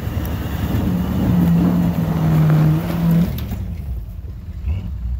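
Early Ford Bronco's engine pulling hard under load as it climbs a snowy trail hill. The engine holds a loud, steady note, then drops away about three and a half seconds in.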